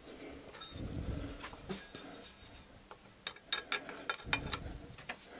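Faint handling noise, then a run of light metallic clicks about three seconds in as a hex key is worked into the drain plug of the automatic transmission pan.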